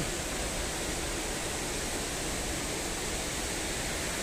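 A waterfall rushing steadily, an even, unbroken noise of falling water.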